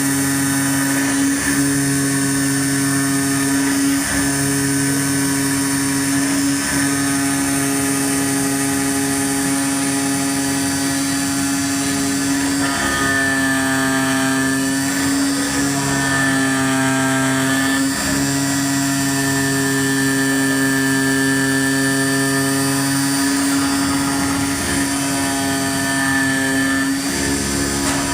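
Automatic CNC flatbed knife-cutting machine running while cutting asbestos sheet. It gives a steady mechanical hum with a whine whose pitch steps up and down as the cutting head moves, most changeable about halfway through.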